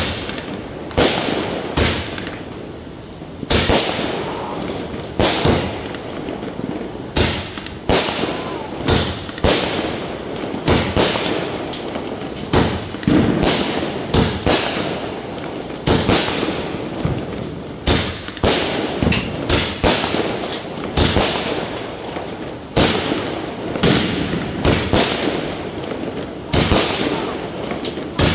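A 120-shot aerial fireworks cake firing shot after shot: a steady run of sharp bangs, about one to two a second, each with a short tail as the shell bursts.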